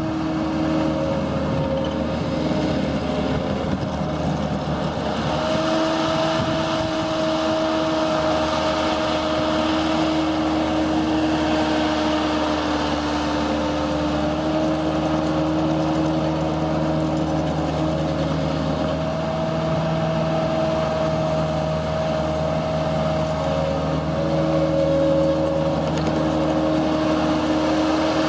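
Case 450CT skid steer loader's diesel engine running steadily, with a steady whine riding on it that shifts slightly in pitch a few times.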